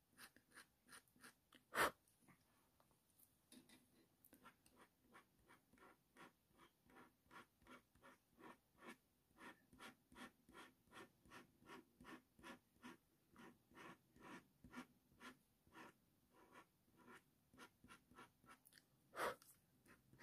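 Faint, even scratching strokes, about two a second, of a Slice ceramic-blade tool scoring fine hair lines into layered coloured pencil on hot-press watercolour paper. A sharp tap sounds about two seconds in and another near the end.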